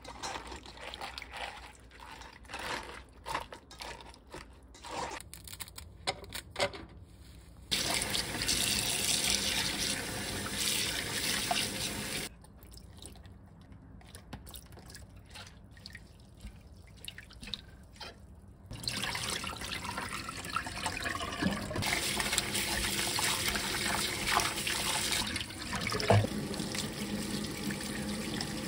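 Hands toss salted cabbage leaves in a stainless steel bowl, a string of soft rustles and clicks. Then a kitchen tap runs into a stainless steel sink while perilla leaves are rinsed by hand under the stream. The water runs twice: from about 8 s to about 12 s, and again from about 19 s to the end.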